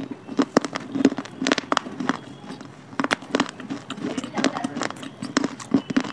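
Close-up crunching and chewing of dry clay pieces, a dense, irregular string of sharp crunches.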